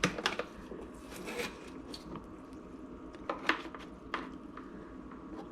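Plastic humidifier parts being handled and set into a bowl of vinegar, with a few light, scattered clicks and knocks.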